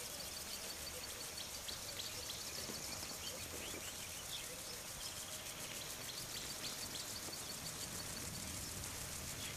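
Rural tropical outdoor ambience: birds giving many short, high chirps over a steady background hiss.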